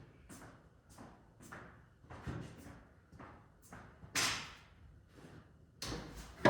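Irregular knocks and scrapes of lumber being handled and worked into a stud wall, ending in a loud thump with a short ring.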